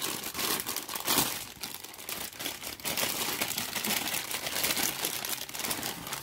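Plastic packaging crinkling and rustling without a break as it is handled, the sound of a new bolt being taken out of its wrapping.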